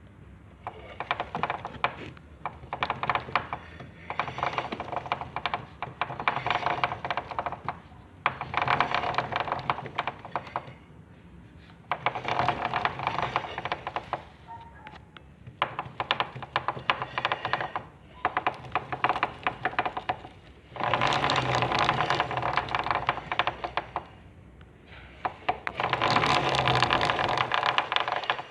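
Honda CB400 motorcycle engine running with a knock: a dense, rapid clatter that swells in about nine spells of a couple of seconds each, with quieter running between them.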